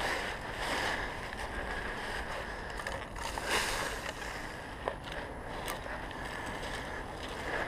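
Footsteps and movement through deep dry fallen leaves, a steady crunching rustle with a few sharp clicks in the middle.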